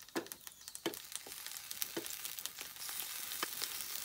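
Hot oil sizzling in a preheated pan as tofu-skin rolls of enoki mushrooms are laid in, with scattered pops and clicks. The sizzle builds over the first second or so, then holds steady.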